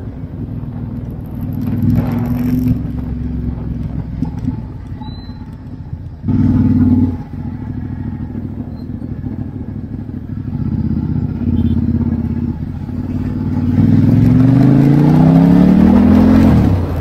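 Ducati XDiavel S's V-twin engine running under way. There is a short, louder rev about six seconds in, and the pitch climbs steadily for about three seconds near the end as the bike accelerates.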